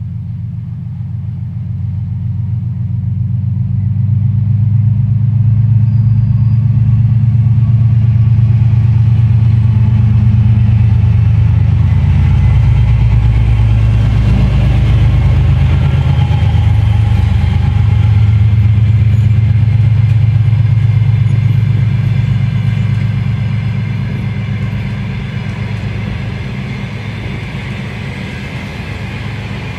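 A single section of a 2TE10Ut diesel locomotive passing close by: the deep drone of its two-stroke diesel engine grows louder as it approaches and dips in pitch as it goes past. A long train of passenger coaches follows, their wheels rolling on the rails as the engine sound fades near the end.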